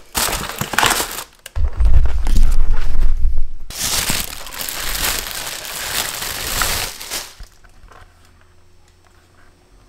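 Cardboard box and plastic wrapping crinkling and rustling as a new bumper light is unpacked by hand, lasting about seven seconds. About one and a half to nearly four seconds in, heavy low handling noise on the microphone as the camera is moved.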